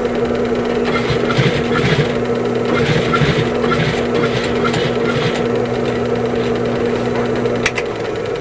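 Electric sewing machine running, its motor humming steadily, with a slow, even run of stitches, about three a second, through the middle of the stretch.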